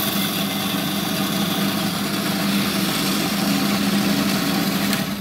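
Gryphon C-40 diamond band saw running with a steady hum and a high whine while it cuts through an acan coral skeleton. It stops abruptly at the very end, switched off.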